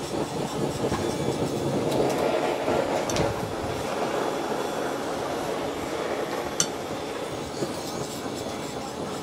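Handheld butane blowtorch on a gas canister, burning with a steady hiss as it flames vegetables and sauce in a pan. One sharp click about two-thirds of the way through.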